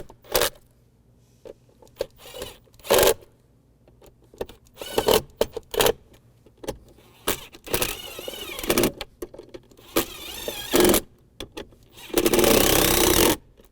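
Clicks, knocks and short scrapes of hand work on the plastic center console as the new lid latch's screws are tightened and the parts handled. Near the end comes a loud rushing noise lasting about a second.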